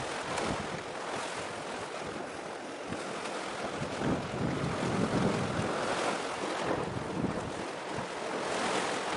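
Wind blowing on the microphone over the wash of sea waves, an unsteady rushing noise that swells about halfway through.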